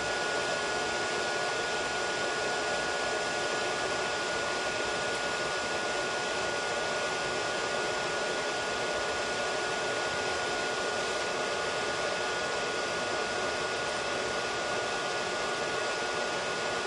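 Steady electric fan whir with a thin, high, unchanging tone, from the cooling fans and power supplies of powered-up CNC lathe control electronics.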